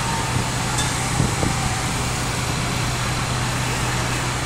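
Parked fire engines idling: a steady low engine hum under an even rushing noise.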